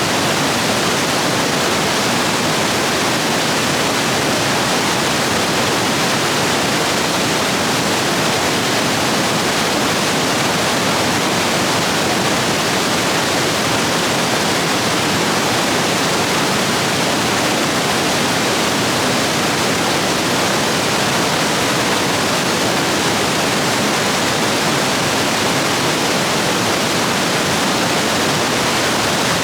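Rain-swollen stream rushing steadily over rapids, a continuous loud roar of white water.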